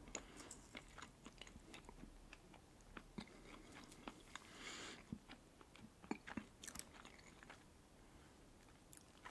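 Soft, close-miked chewing of a red salmon caviar sandwich on white bread: faint wet mouth clicks and small pops as the roe bursts.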